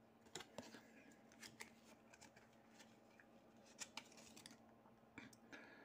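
Near silence with a few faint, scattered clicks and light rubs of stiff trading cards being handled and slid against one another.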